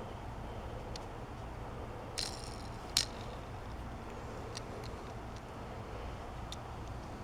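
Light handling of a plastic blister-packed toy car: a short crinkle about two seconds in and a sharp click about a second later, with a few faint ticks over a low steady room hum.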